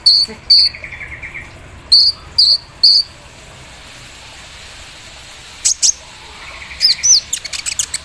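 Kolibri ninja (sunbird) singing: sharp high chips, mostly in pairs, over the first three seconds, then a fast chattering run of high notes with quick rising whistles near the end. A softer buzzy trill comes about a second in and again near the end.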